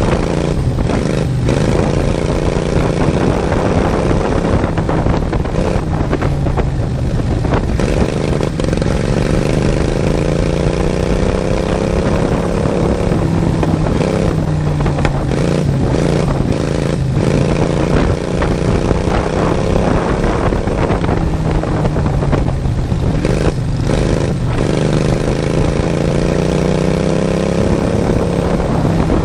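Racing lawn mower's engine running hard, recorded on board, its pitch climbing and dropping every several seconds as the throttle changes. Brief knocks and rattles break in over it.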